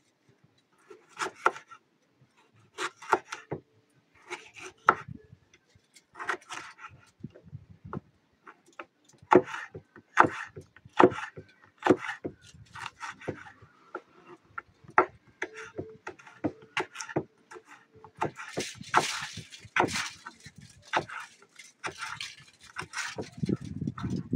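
Kitchen knife chopping manzano chiles on a wooden cutting board: irregular clusters of sharp knocks as the blade hits the wood.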